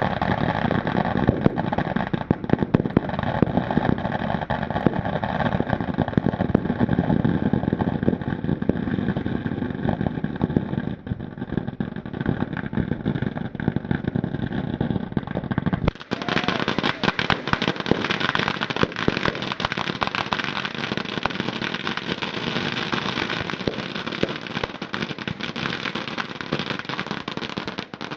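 Firework display going off: a dense, continuous stream of rapid cracks and bangs over a low rumble. About halfway through the sound changes abruptly to a thinner, sharper crackling without the low rumble.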